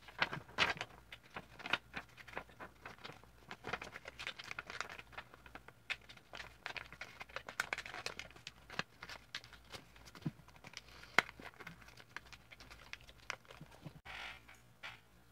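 Paper being handled and folded into paper airplanes by hand: irregular crinkles, rustles and crisp little snaps as the folds are creased.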